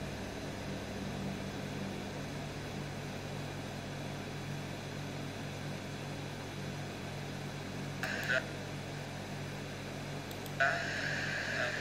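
A steady low electrical hum, with brief snatches of a man's voice about eight seconds in and again near the end.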